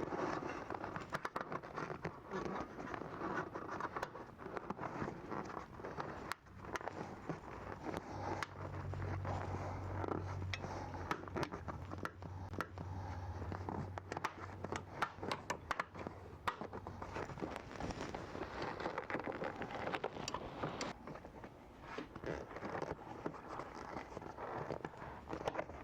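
Hands working a leather seat cover and foam onto a truck seat frame while fastening the cover's J-clips: irregular scraping, rustling and sharp clicks throughout. A low steady hum comes in for several seconds in the middle.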